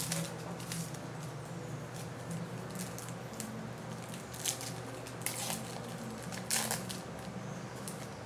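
Trading card pack wrappers and cards being handled: short crinkling and sliding swishes every second or so, over a steady low hum.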